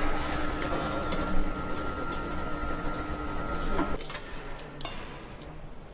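Factory-floor ambience in a helicopter assembly hall: scattered clinks and clicks of tools and parts over a steady background noise, with a steady machine whine that cuts off about four seconds in.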